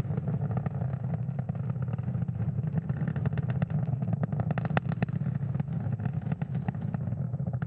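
Falcon 9 first-stage Merlin 1D rocket engines in full flight, a continuous deep rumble with dense crackling, heard through the onboard camera during the climb toward maximum aerodynamic pressure.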